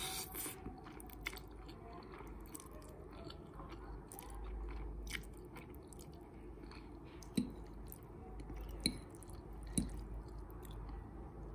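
Close-miked mouth sounds of eating spicy instant noodles with fried egg: wet chewing with scattered small clicks, and three sharper, louder sounds in the second half.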